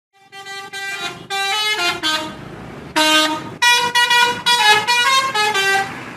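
Indonesian bus 'telolet' musical horn playing a quick tune of short notes at changing pitches, louder in the second half.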